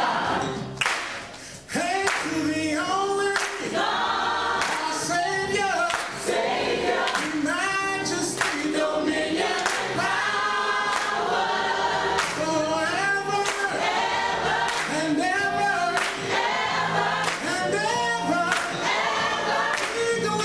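Gospel choir singing together, with a steady beat of sharp hits behind the voices.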